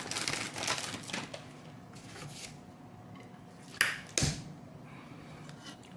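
Handling and rubbing of a bare graphics card being cleaned: a few scratchy rubbing strokes, then two sharp knocks a little under half a second apart about four seconds in.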